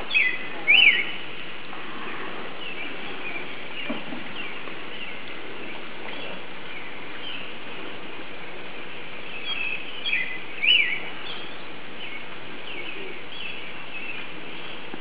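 Songbirds chirping and calling in quick, short notes over a steady background hiss. The loudest calls come about a second in and again just after ten seconds.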